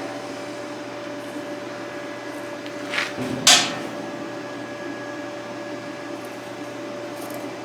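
Steady workshop hum with two brief scratches about three seconds in, a steel scribe scraping on a steel foot plate while marking around a nut.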